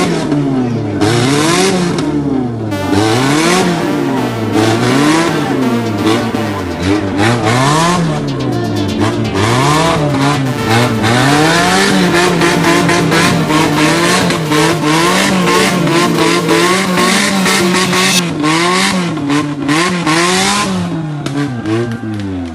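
Off-road vehicle's engine revving hard, its pitch climbing and dropping over and over about every second or two as the driver works the throttle, with tyre and gravel noise crackling over it.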